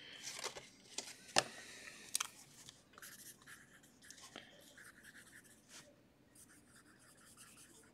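A few light clicks and taps of a card in a plastic top loader being handled and set down, then a pen scratching on paper in short strokes as notes are written.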